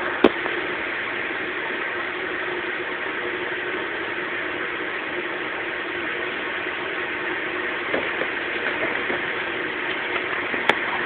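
Steady droning hum with a constant tone running under it, like a running engine. A sharp click comes just after the start and another near the end.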